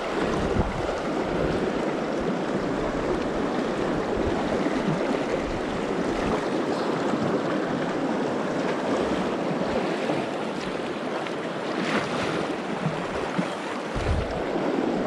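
Steady rush of the Madison River's fast riffle water, with brief gusts of wind on the microphone a couple of times near the end.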